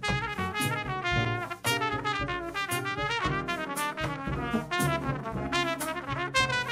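Jazz quartet playing: a trumpet plays a fast line of quickly changing notes over piano, plucked upright bass and drums with regular cymbal strokes.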